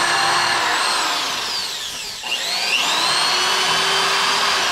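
Corded electric drill boring a pilot hole through a brace's screw hole into a wooden 2x4: the motor runs at speed, slows about two seconds in, then spins back up and runs steadily.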